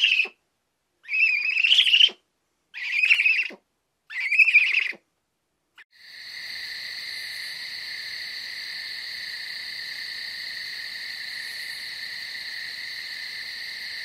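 Barn owl screeching: four harsh, rasping calls about a second long in quick succession. About six seconds in they give way to a steady high-pitched drone that does not change.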